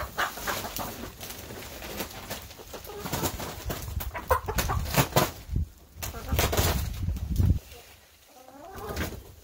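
Hens clucking in the coop over loud rustling and handling noise from about three to seven and a half seconds in, as bedding shavings and their bag are moved. A hen gives a wavering call near the end.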